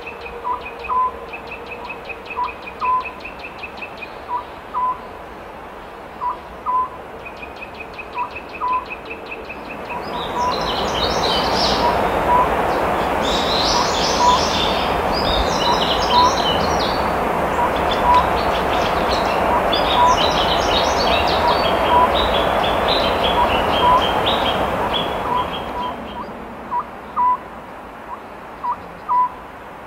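Oriental scops owl singing: short low hoots repeated about once a second, some in quick pairs. From about ten seconds in to about twenty-six seconds, a louder rushing noise and a small bird's rapid high chirping come in over the hoots.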